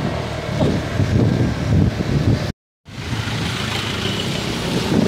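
Traffic noise on a wet road, heard from a moving vehicle: a steady engine rumble with tyre and road hiss as trucks are passed close by. The sound cuts out completely for a moment about halfway through.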